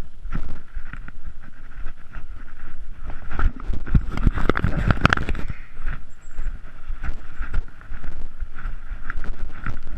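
A hiker's irregular footsteps and scuffs on a rough, rugged trail, with rustling and scraping that is loudest about four to five seconds in.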